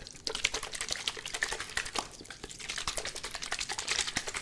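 Close-miked ASMR handling sounds: a clear plastic object crinkled and tapped right at the microphone, making a dense run of crisp, irregular clicks and crackles.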